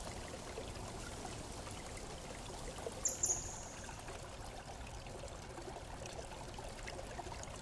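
Steady rushing hiss, with a short high-pitched electronic sound about three seconds in.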